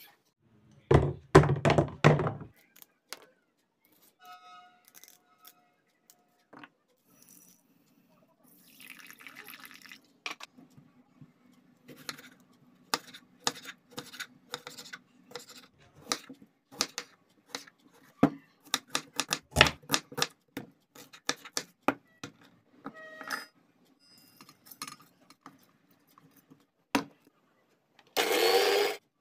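A few loud thuds near the start, then a long run of knife strokes through a tomato onto a wooden chopping board. Near the end, a mixer grinder's motor runs in one short burst of about a second.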